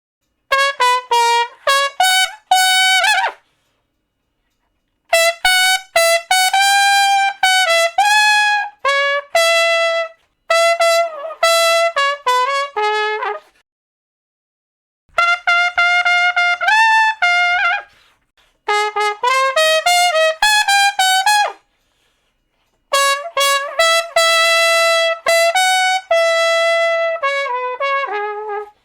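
Solo trumpet playing short melodic phrases of quick, separate notes, about six phrases, each broken off by a silent gap of one to two seconds.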